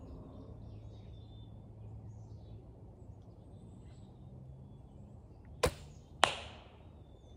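A traditional longbow shot: a sharp snap as the Javaman Elkheart longbow's string is released, then about half a second later a louder crack that fades off as the arrow strikes downrange.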